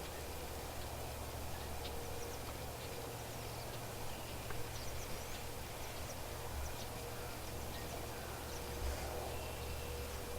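Outdoor ambience: a steady low rumble of wind with scattered faint, high bird chirps.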